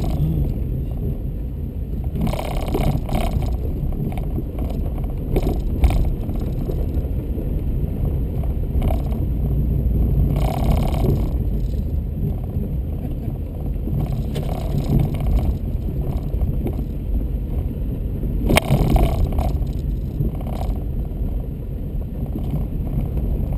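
Vehicle cabin noise while driving on a dirt road: a steady low rumble, with a few brief louder knocks and rattles, the loudest near the end.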